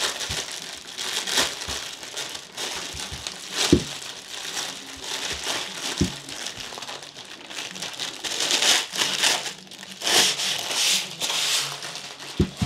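Plastic wrapping crinkling and rustling as it is pulled off a roof bar, swelling and easing several times, with a few sharp knocks, the last near the end.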